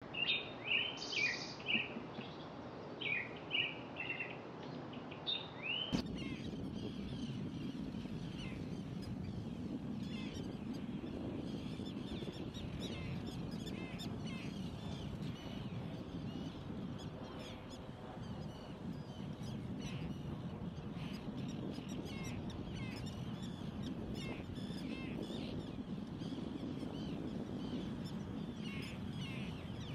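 Loud, sharp bird calls, each falling in pitch, in the first several seconds. Then a steady low outdoor rush with many faint, high, short bird chirps scattered throughout.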